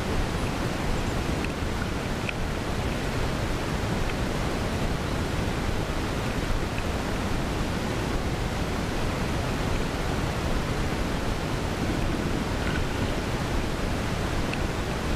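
Steady rushing of a shallow river flowing over a stony bed.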